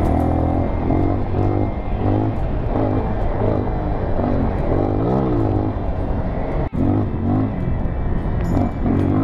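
Dirt bike engine being ridden over a bumpy dirt track, its pitch rising and falling again and again as the throttle is opened and the gears are shifted, with wind noise underneath. The sound cuts out for an instant about two-thirds of the way through.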